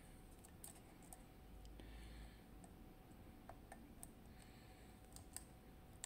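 Faint, irregular clicks of a lock pick and tension wrench working in the keyway of a FAB 2000 cylinder lock.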